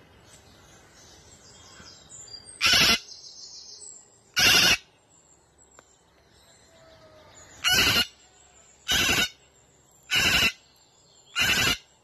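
Sulphur-crested cockatoo screeching: six short, harsh, very loud screams, two in the first half and four more at a steady pace of about one a second near the end.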